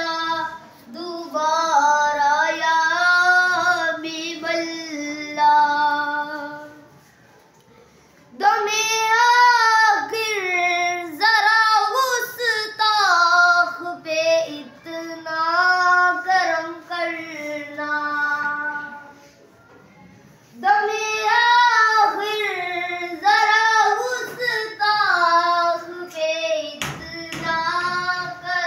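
A schoolboy singing an Urdu song alone, without accompaniment, in long held phrases, pausing briefly twice.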